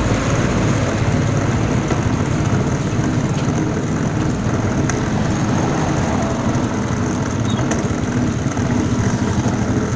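Steady city road traffic, car engines on the street, heard from a bicycle riding along with it, with a heavy low rumble throughout and no clear single event.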